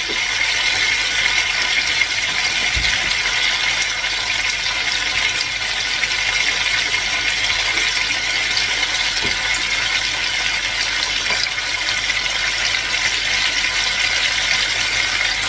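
Chicken pieces sizzling steadily as they brown in a hot casserole pot.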